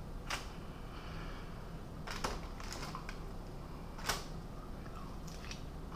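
A few sharp clicks and small crackles as smoked chicken wings are pulled apart by hand, the loudest about four seconds in.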